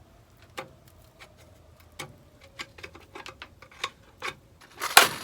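Irregular sharp metallic clicks and taps of hand tools working on the combine head's cutter bar, getting louder and closer together near the end.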